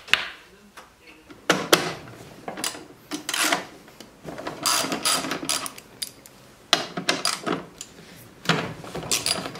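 Hand tools on a Honda ATV's rack and plastic fender: irregular clicks, ratchet-wrench ticking and metal clanks in short clusters as bolts are worked loose to reach the battery.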